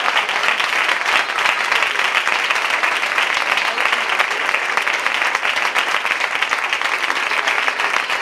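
Audience applauding: many hands clapping at once in a steady, even wash.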